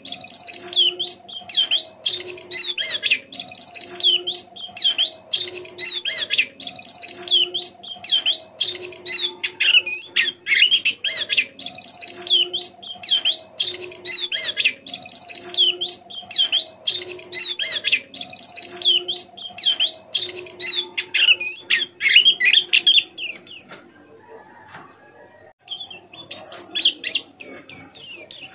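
Pleci (white-eye) twittering in a rapid, continuous run of high chirps and trills, the soft 'ngeriwik' song of a young bird learning its song. A fainter, lower repeating note runs underneath. The song breaks off for about two seconds near the end, then resumes.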